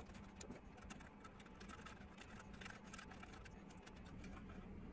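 Near silence with many faint, quick, irregular ticks and clicks of fine pliers working at the bell fitting on a plastic HO-scale locomotive shell, one slightly louder click at the very start.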